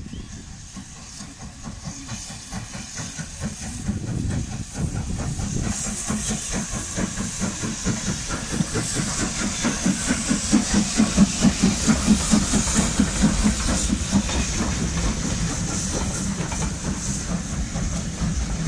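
USATC S160 2-8-0 steam locomotive moving off slowly past, cylinder drain cocks hissing and exhaust chuffing in a steady rhythm. The sound grows louder and is loudest a little past halfway as the engine passes, then eases as the coaches follow.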